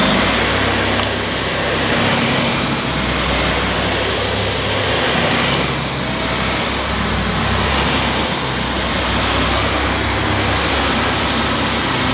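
Dyson Ball Animal Multifloor upright vacuum cleaner running on plush pile carpet with its cleaner head on the medium setting. The motor and brush bar run at full speed without bogging down. The sound swells and eases slightly as the cleaner is pushed back and forth.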